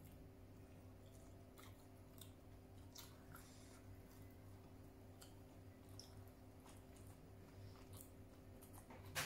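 Faint chewing and wet mouth clicks of a person eating rice and fish by hand, over a low steady hum, with one sharper click at the very end.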